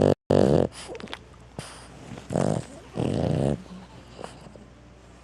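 Boston terrier snoring, a harsh buzzing snore as it breathes, the kind of snoring typical of a short-nosed breed. A loud snore comes right at the start, broken by a brief dropout, and two more follow about two and three seconds in. It is quieter near the end.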